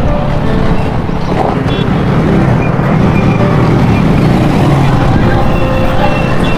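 Small two-wheeler engine running at low speed, with steady road and wind noise.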